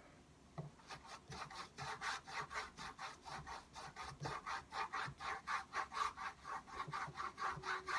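Paintbrush bristles scrubbing back and forth over an oil-painted canvas panel, a rasping stroke about four times a second. The strokes start about a second in.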